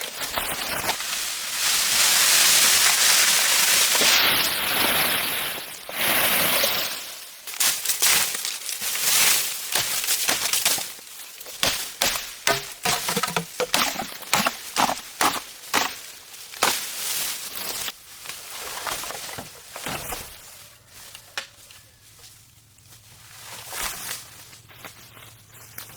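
A loud rustling hiss for the first six seconds or so, then a long run of sharp, irregular knocks and cracks, about one or two a second, from chopping bamboo with a hand tool; it grows quieter near the end.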